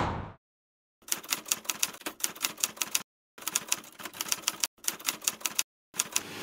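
Typewriter key-clack sound effect: rapid strikes, about five a second, in four runs broken by brief silences, starting about a second in after dead silence.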